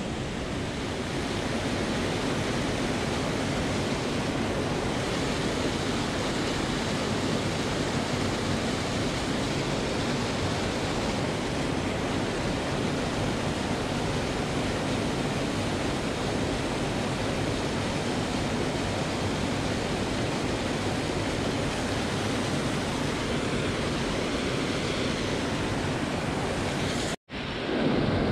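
Steady rushing of river current, an even wash of water noise. It cuts out for an instant about a second before the end and comes back slightly louder.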